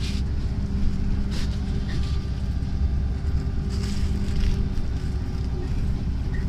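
Cabin noise inside a BKM 32102 trolleybus: a steady low rumble with a steady hum running under it. A few brief rustles come through, the loudest about four seconds in.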